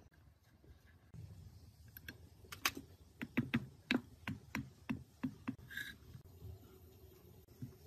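Light metallic clicks and taps as small parts of an overlock sewing machine are handled and fitted into its metal frame during reassembly. About ten irregular clicks come in a run from a few seconds in until just past the middle.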